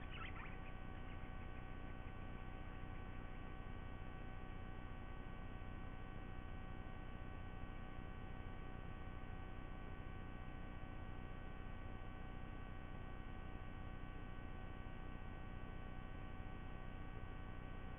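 Steady electrical hum and hiss from the nest camera's audio feed, with several fixed tones in it. A few brief, faint, high chirps come right at the start.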